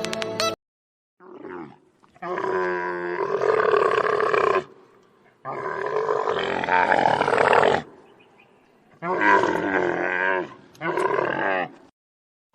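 Camel calling: a short call, then four longer drawn-out calls of one to two and a half seconds each, with a wavering pitch and silences between them.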